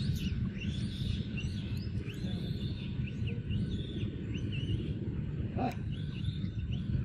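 Small birds chirping in short, repeated high notes over a steady low rumble, with one sharp click late on.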